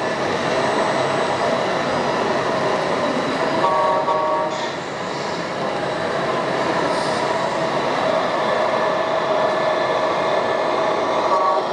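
Steady mechanical running with a constant whine over a dense background noise.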